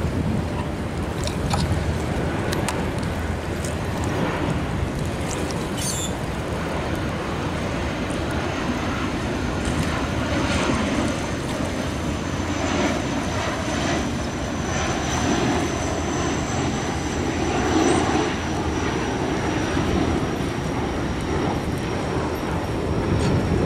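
Steady engine drone of a boat running on open water, with wind buffeting the microphone and water noise; a faint thin high whine comes in about a third of the way through and holds.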